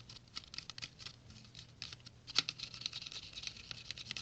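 Quick, irregular light clicks and taps of small plastic containers being handled while water and the activator mixture are measured and mixed, with one sharper tap about two and a half seconds in.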